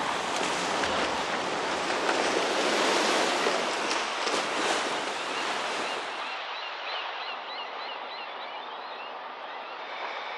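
Loud rushing, splashing water of a ship launch as the hull slides down the slipway into the harbour. At about six seconds it falls to quieter lapping water, with short high chirps for a few seconds.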